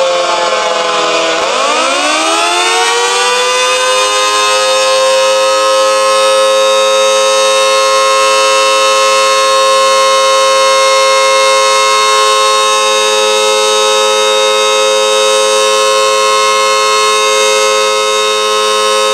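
Federal Signal Model 2 electromechanical outdoor warning siren. Its pitch falls for about a second and a half, then winds back up over a few seconds and holds a steady, loud wail.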